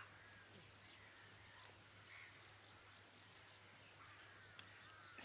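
Near silence: faint outdoor ambience with scattered distant bird chirps, and one sharp click near the end.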